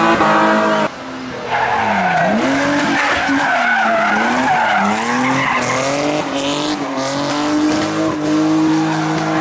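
A BMW E30 rally car's engine revving hard, its pitch dipping and climbing again several times as the throttle is lifted and reapplied through the corner, then held high near the end. The tyres squeal as the car slides.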